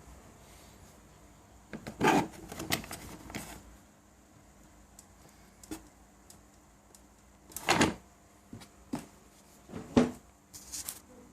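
A few separate clunks and rattles, the loudest about two and eight seconds in and a sharp knock about ten seconds in, with no engine running between them.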